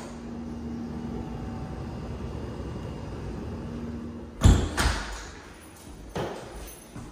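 An exterior door is opened onto the yard, letting in a steady low background hum, then pulled shut with a loud bang about four and a half seconds in. A few footsteps on a hard floor follow.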